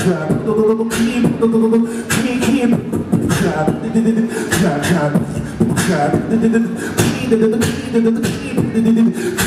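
Human beatboxing into a handheld microphone: sharp snare and hi-hat hits in a steady beat, over a hummed low bass tone that comes and goes.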